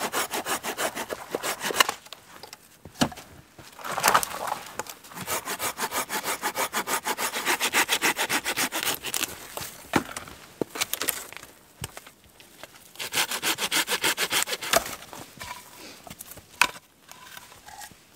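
Hand saw cutting through a dead branch for firewood, in quick back-and-forth strokes of about four or five a second. The strokes come in several runs with short pauses between them, and the longest run is in the middle.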